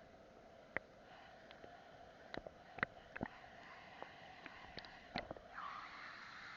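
Faint steady rush of water from a river cascade, with a dozen or so small sharp irregular ticks and plops over it; the rushing grows louder about five and a half seconds in.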